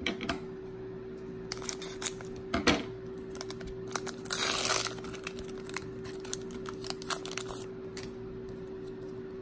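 Foil trading-card booster pack being handled and cut open with scissors: scattered small crinkles and clicks, a sharp tick a little under three seconds in, and a half-second stretch of cutting and crinkling through the foil near the middle.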